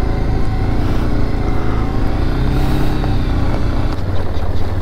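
Motorcycle engine running steadily while being ridden, a constant low rumble.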